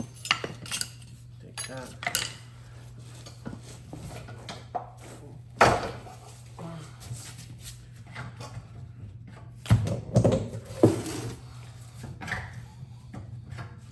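Hand tools and small metal parts clinking and knocking during hands-on disassembly: an uneven run of sharp clicks. The loudest knocks come a little before halfway and again about three-quarters of the way through.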